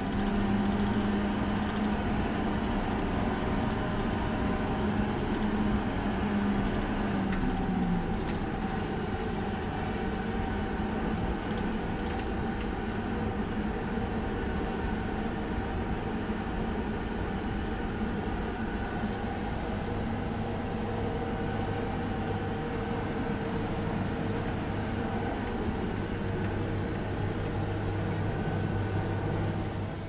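Case IH tractor engine running steadily under way, heard from inside the cab, its pitch dropping about eight seconds in.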